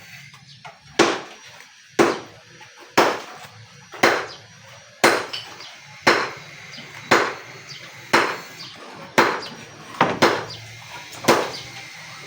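Steady hammer blows during kitchen building work, about one sharp strike a second, each with a short ring. There is a quick double strike near the end.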